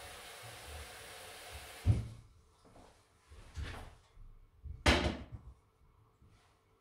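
Kitchen tap running water into a stainless-steel pot, shut off about two seconds in with a knock. Then a few metal knocks as the pot is lifted and handled, the loudest a clunk about five seconds in as it is set down on the stove.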